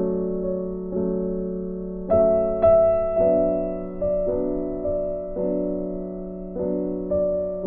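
Slow, soft background piano music: chords struck about once a second, each ringing and fading before the next.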